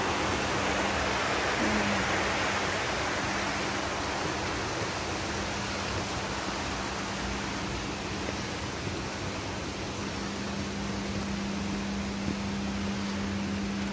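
Stream water rushing over a small weir, an even hiss that is strongest over the first couple of seconds and then steadier and a little softer. A steady low hum runs underneath.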